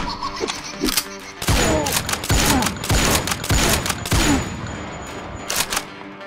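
A rapid string of gunshot-like cracks, starting about a second and a half in and lasting about three seconds, fired at a seated target from a toy sniper blaster. A couple of further shots follow near the end.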